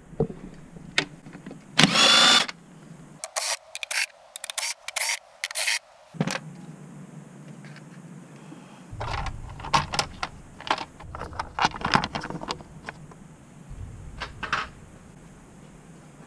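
Cordless power tool whirring in short bursts: one longer whining run about two seconds in, then a string of quick trigger pulls, with more short bursts and clicks later, as fasteners are driven off.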